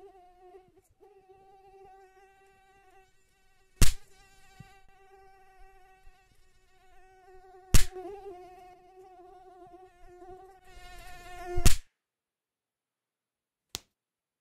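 Mosquito buzzing with a steady whine, broken by three loud hand claps about four seconds apart as someone swats at it; the buzzing stops at the third clap. A faint click near the end.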